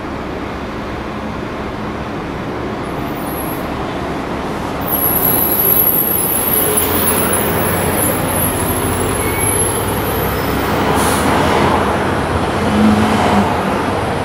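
Hong Kong double-decker electric tram moving off along the street, amid steady road traffic noise that grows louder about five seconds in, with a thin high whine for several seconds in the middle.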